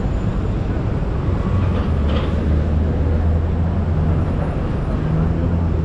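Busy city street noise, with a heavy vehicle's engine running close by as a low steady hum from about a second and a half in.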